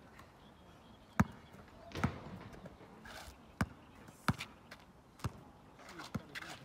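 Basketball dribbled on an asphalt court: separate sharp bounces, roughly one a second at an uneven pace, the loudest about a second in.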